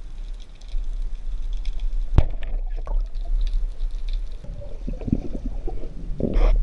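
Underwater sound picked up through a camera housing: a steady low rumble of water with faint scattered crackling ticks, a sharp knock about two seconds in, and a louder rushing swirl near the end.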